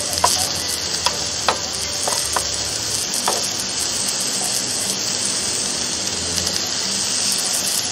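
Beef and vegetables sizzling steadily on the ribbed plates of an opened electric grill, with about six light clicks of metal tongs against the food and plates in the first three seconds or so.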